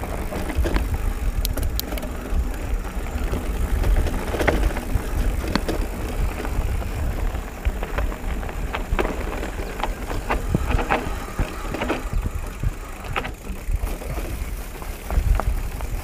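Mountain bike ridden over a rough, eroded dirt road, heard from the handlebar: wind rumbling on the microphone, with frequent sharp clicks and knocks as the tyres hit stones and the bike rattles.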